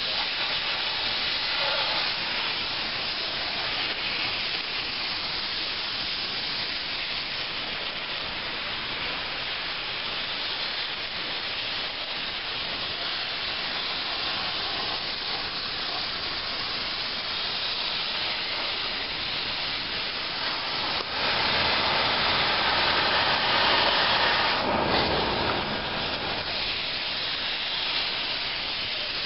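Oxy-fuel cutting torch hissing steadily as it cuts through a steel link of a dragline bucket chain, growing louder for a few seconds about two-thirds of the way through.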